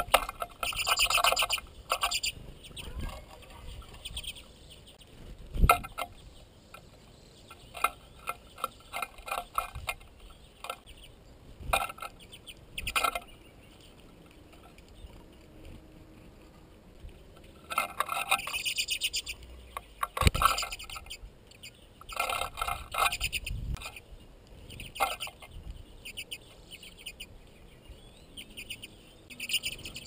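Small finches at a seed feeder, common redpolls among them, calling in several bouts of quick, rapid chattering. A few dull thumps fall between the bouts.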